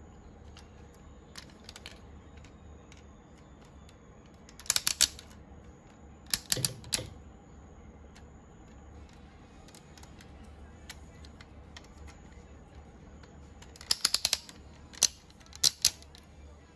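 Hard plastic parts of a DX King-Ohger combining robot toy clicking and snapping as they are folded and pegged together by hand. The clicks come in a few short clusters, spread several seconds apart.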